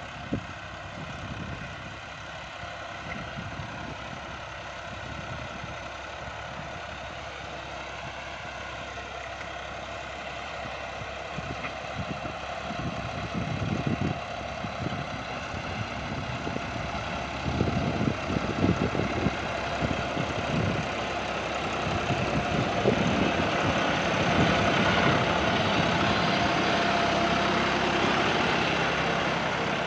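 John Deere 5075E tractor's three-cylinder diesel engine running steadily as it pulls a cultivator through the field, growing louder in the second half.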